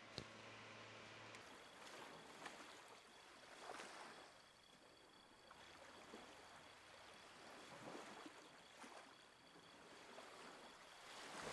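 Near silence: a faint hiss with a few soft, scattered ticks.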